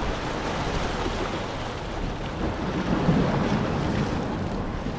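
Wind buffeting the microphone over the rush of sea water, a steady noisy roar that swells slightly a few seconds in.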